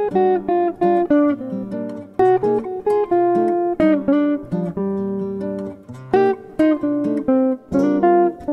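Background music: a quick melody of plucked string notes.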